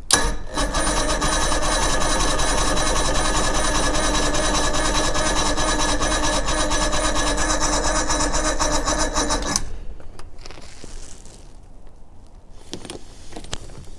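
Electric starter cranking an old Johnson 90 hp V4 two-stroke outboard: a click, then a steady fast mechanical whirr for about nine seconds that stops abruptly.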